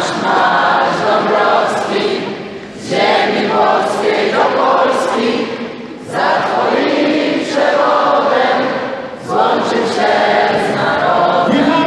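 A large crowd of fans singing together in unison, in phrases of about three seconds with short breaks between them.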